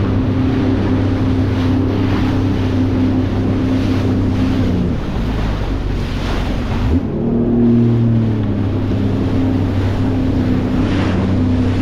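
Sea-Doo GTX 230 personal watercraft engine running under way, with wind buffeting the microphone. About five seconds in the engine note drops off, then climbs back up around seven seconds as the throttle is reapplied in the rough swells.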